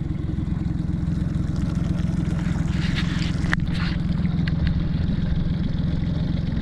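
Boat motor running steadily at trolling speed, a constant low hum. A brief scraping noise rises over it about three seconds in.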